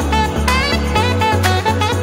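Background music with a steady beat of about two strokes a second, a stepping bass line and a melody with bending notes.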